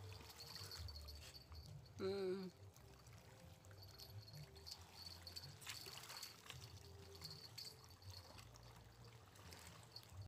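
Near silence, broken only by one brief, faint pitched sound about two seconds in.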